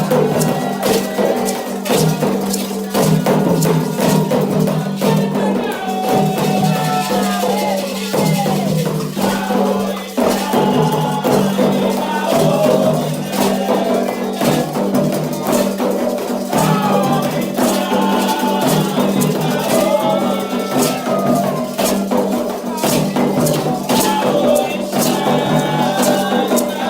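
Candomblé ceremonial music: voices singing over shaken rattles and regular struck percussion.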